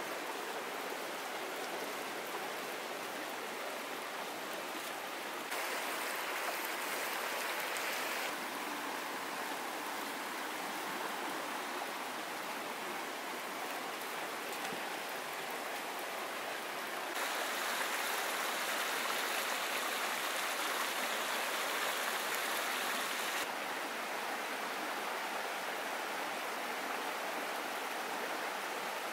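Rocky mountain river rushing over boulders: a steady rush of water that steps louder and quieter a few times, loudest a little past the middle.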